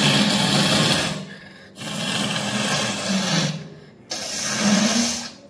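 A person blowing her nose hard three times, each a long forceful blast of air through mucus, the first already under way: clearing a nose blocked by a cold.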